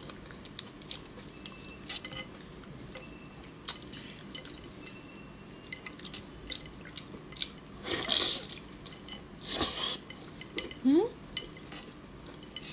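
Close-up eating sounds of raw lobster in a spicy marinade: small clicks and crackles of the shell being pulled apart by gloved hands, and two loud wet slurps about eight and nine and a half seconds in.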